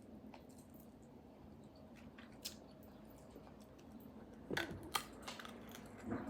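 Close-miked eating sounds from someone eating air-fried bone marrow: soft chewing, with sharp clicks and crunches about four and a half seconds in and again near the end.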